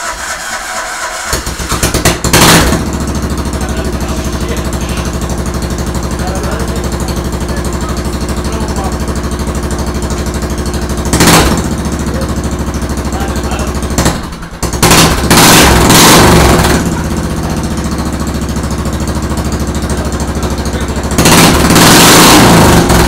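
Riding-mower engine running with its muffler off on its first start after a rebuild, idling steadily and revved up briefly several times.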